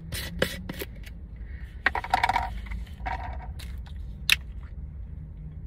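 Hard plastic clicks and clatters from handling a plastic water bottle and its contents, with a single sharp crack just after four seconds in as the bottle's cap is twisted open. A steady low hum runs underneath.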